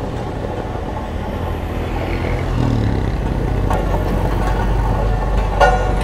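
Diesel engine of a small Cat tandem-drum road roller running steadily as it drives closer, growing louder. A motorcycle passes about two and a half seconds in, and there is a short, louder sound near the end.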